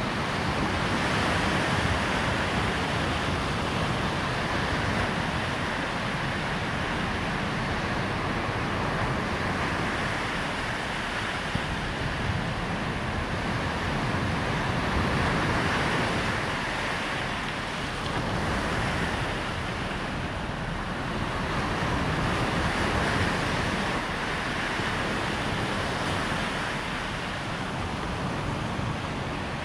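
Surf breaking on a sandy shore, a steady wash that swells and eases every several seconds, with wind rumbling over the microphone.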